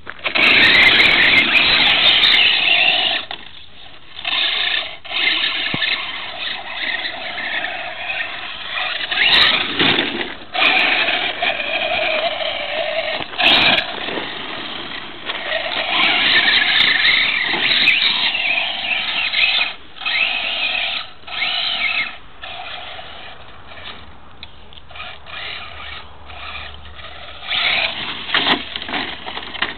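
Traxxas Slash VXL radio-controlled truck's brushless electric motor and drivetrain whining in repeated throttle bursts, each from under a second to a few seconds long, cutting off in between.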